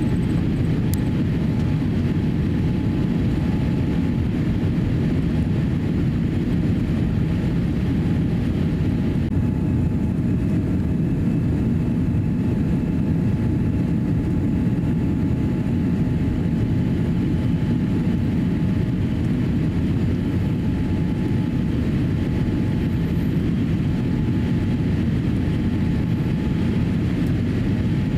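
Steady cabin noise of a Boeing 787-8 climbing after takeoff: the low rumble of its GEnx engines and rushing air, heard from a window seat by the wing. The higher hiss eases a little about nine seconds in.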